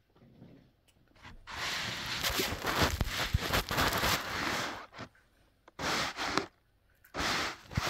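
Handling noise on a phone's microphone: a long stretch of rubbing and rustling with a few knocks, then two shorter bursts near the end.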